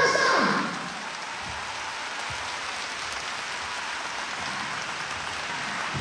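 Large concert-hall audience applauding after a rock song. The band's last note slides down and stops about half a second in, leaving a steady wash of clapping.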